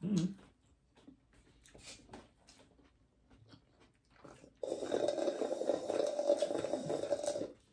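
Slurping through a plastic drinking straw from a cup: a steady, noisy gurgling suck that starts a little past halfway, lasts nearly three seconds and cuts off suddenly. Before it there are faint chewing and mouth clicks.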